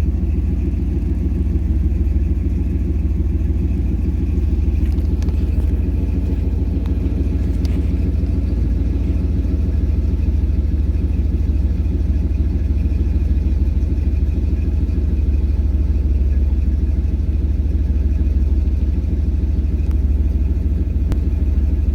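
1989 Camaro IROC's V8 engine idling steadily, heard from inside the car, while it warms up.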